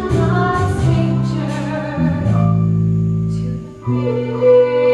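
A woman singing a solo with instrumental accompaniment, holding one long note in the middle and pausing briefly just before the end.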